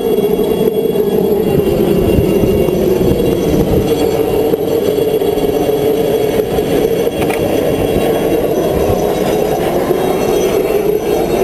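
Helicopter flying low overhead with a water bucket slung beneath it: a loud, steady rotor and engine drone.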